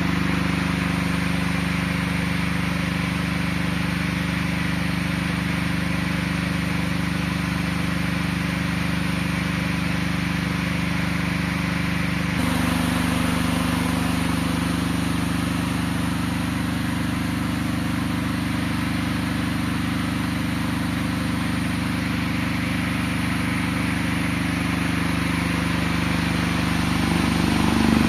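Cadence electric fan running with a coloured propeller: a steady motor hum over a rush of air. The hum's pitch shifts suddenly about twelve seconds in.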